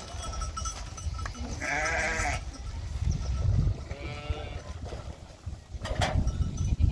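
Sheep bleating: one loud bleat about two seconds in, then a fainter one about a second and a half later.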